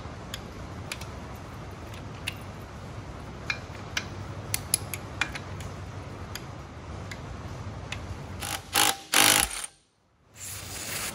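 Torque wrench being worked on the starter-assembly bolts on a Norton Commando's primary side: scattered sharp ratchet clicks over a steady low hum, then two louder rasps about nine seconds in.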